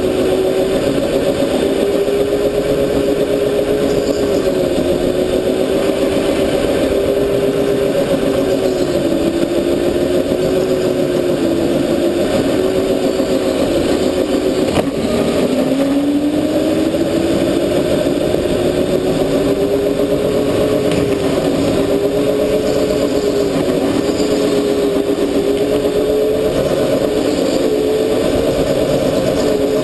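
A racing go-kart's motor running under load through a lap, its pitch rising and falling with speed. About halfway through it drops sharply as the kart slows for a corner, then climbs steadily as it accelerates out.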